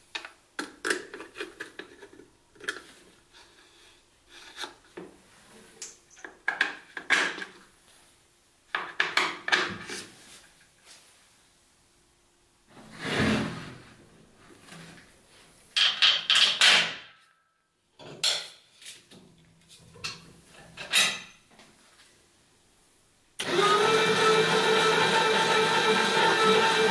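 Scattered clicks, knocks and short scrapes from hands working a home-built motorized chain-drive bench vise: turning its control knob and handling the steel jaw. Near the end a loud steady sound with several held pitches cuts in suddenly.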